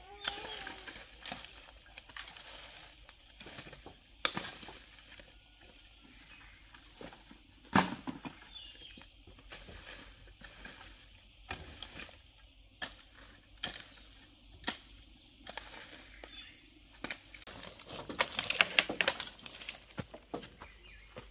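A long-handled hand tool striking and scraping soil among dry leaves and twigs in irregular strokes, with one sharp strike about eight seconds in and a quick run of scrapes and knocks near the end.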